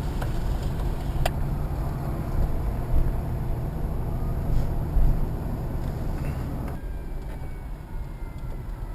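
Motor vehicle running, a steady low rumble, with a single sharp click about a second in; the rumble eases a little near the end.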